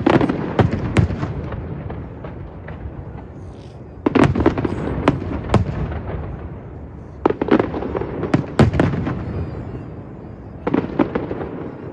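Fireworks exploding overhead: four clusters of sharp bangs and crackles, each rolling off in echo, with short lulls between.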